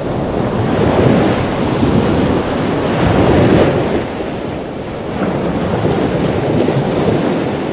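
A loud, steady rushing noise like surf, swelling about a second in and again around three and a half seconds in, then easing.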